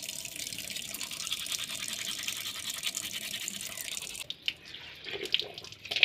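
Manual toothbrush scrubbing back and forth against teeth with a fast, scratchy bristle sound. The scrubbing stops about four seconds in, and a few short wet sounds of rinsing the mouth with cupped water follow near the end.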